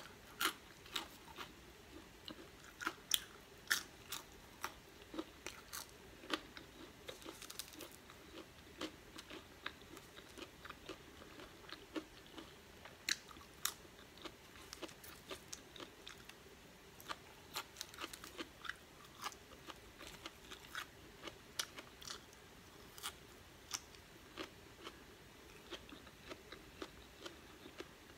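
Close-up chewing and biting of french fries: a run of irregular, sharp crunches.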